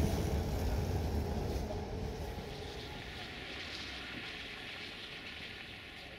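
Passenger train coaches rolling past on the rails, a low rumble that fades over the first three seconds as the last coach clears and the train pulls away, leaving a quieter steady noise.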